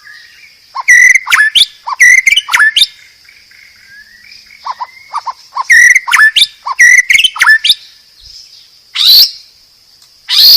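White-rumped shama (murai batu) singing loudly in quick whistled and chattering phrases, in three bouts with short pauses between.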